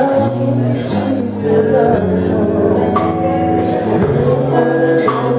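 Live church worship band playing during a sound check: drum kit with cymbal strokes about once a second over sustained guitar and bass notes.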